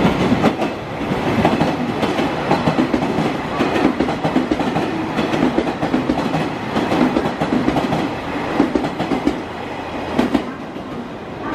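Chizu Express HOT7000 diesel express railcars running past, wheels clicking over rail joints.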